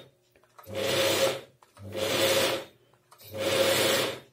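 Chaika 132M sewing machine running on its electric drive in three short bursts of about a second each. It starts and stops as the power cable is bent, because one of the cable's wires is broken and makes contact only when flexed.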